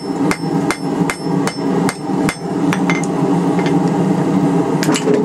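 Cross-peen hammer striking a red-hot steel wrench on an anvil, drawing out its middle in a steady rhythm of about three blows a second. The blows thin out and stop a little past halfway, and a few sharp clinks come near the end, over a steady low drone.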